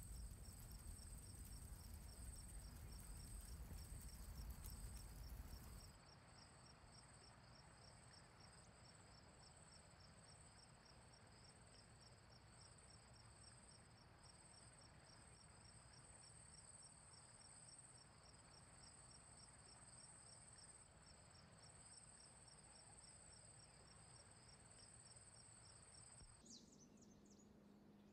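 Faint chorus of night insects chirring, two steady pulsing high tones, over a low rumble that drops away about six seconds in. Near the end the chirring cuts off, leaving a faint low hum.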